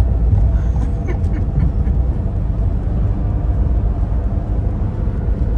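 Wind buffeting the microphone on an open beach, a steady heavy low rumble. In the first two seconds a few faint, short, falling bird calls, likely gulls, sound over it.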